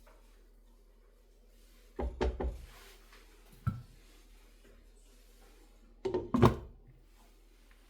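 A few knocks and thuds: a quick run of three hits about two seconds in, a single sharp knock a moment later, and another run of hits near the end, the loudest of them.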